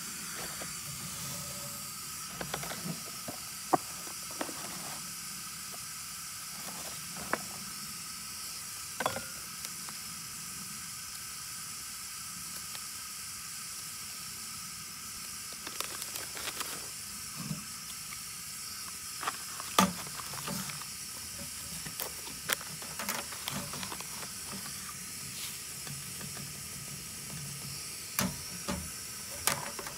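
MSR WindBurner canister stove's gas burner hissing steadily as it heats water for coffee. Scattered sharp clicks, taps and rustles come from coffee gear, a paper filter and a plastic dripper, being handled on the table.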